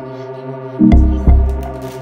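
Background music: sustained chords with a pair of heavy bass beats about half a second apart, about a second in.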